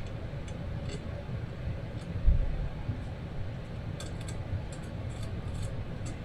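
Light metallic clicks and ticks from handling the transmission oil pan and its bolts, a cluster of them about four to six seconds in, with one low thump a little over two seconds in, over a steady low background rumble.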